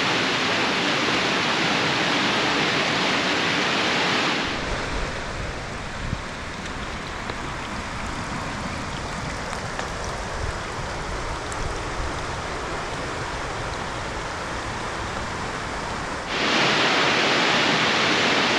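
Waterfall rushing water, a steady loud rush of noise. About four seconds in it drops to a quieter, duller rush with more low rumble, and near the end the full loud rush returns.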